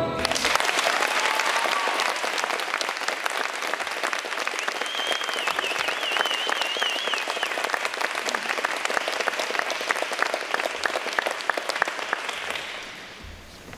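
Small seated audience applauding steadily, a dense patter of many hands. A brief high, wavering whistle rises over the clapping about five seconds in, and the applause dies away near the end.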